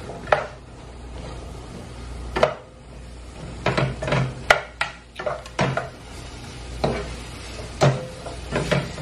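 A cooking utensil knocking and scraping against a frying pan as broccoli is stirred and tossed in olive oil: a dozen or so irregular clacks.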